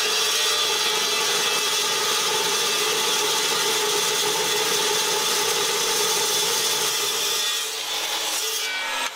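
Metal Devil 14-inch dry-cut metal chop saw cutting through a piece of forged alloy steel (4140 or 4130), a loud, steady grinding whine. Near the end the sound dips a little and a falling tone appears.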